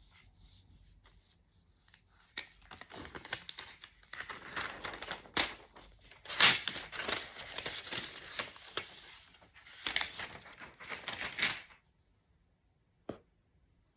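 The packaging of a new iPad Pro being torn open and handled: scratchy paper and plastic tearing and rustling, loudest about six and a half seconds in. It stops near the end, leaving one short click.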